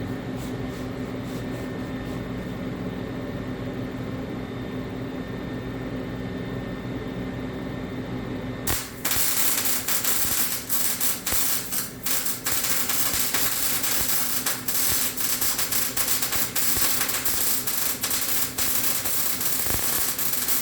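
A steady hum, then about nine seconds in a MIG welder strikes an arc on steel and runs a continuous bead: a loud, dense, even crackle that carries on for about twelve seconds and stops sharply at the end.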